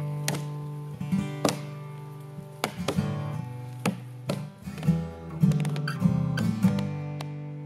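Strummed acoustic guitar music with a steady rhythm.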